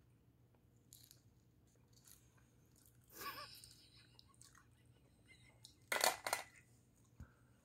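Steamed chestnut shells being cracked and peeled by hand: a crunchy crackle about three seconds in, then two short, sharp knocks about six seconds in, the loudest sounds here.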